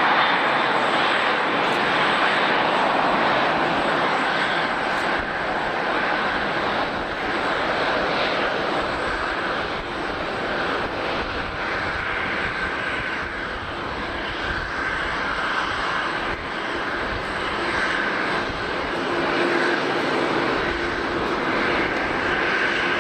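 Jet airliner engines running, a steady rushing noise that eases slightly mid-way and builds again, with a faint high steady whine.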